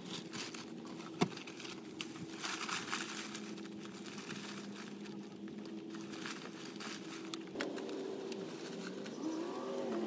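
Plastic bags and loose trash rustling and crinkling as they are gathered out of a car's footwell, over a steady low hum. Near the end a vehicle engine grows louder and rises in pitch.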